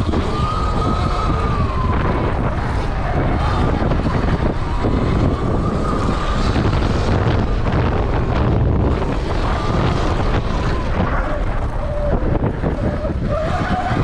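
Stock 2020 Sur Ron X electric dirt bike ridden hard around a dirt track: its motor and drivetrain whine rises and falls with the throttle through the corners, over heavy wind noise on the microphone and the rumble of tyres on dirt.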